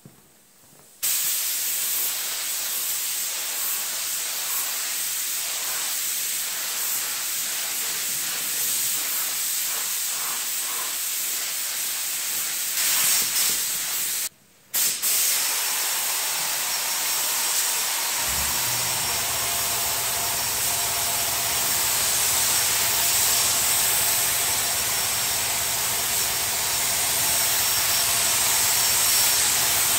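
Air-powered gravity-feed paint spray gun hissing steadily as it sprays paint, starting about a second in and cutting out briefly about halfway through. A steady low hum joins under the hiss about two-thirds of the way through.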